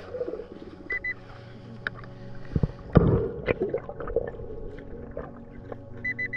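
Underwater pulse-induction metal detector sweeping a sandy seabed, heard through water: muffled knocks and a loud thump near the middle. A short high beep comes about a second in, and a steady high beep starts near the end, the detector signalling a metal target.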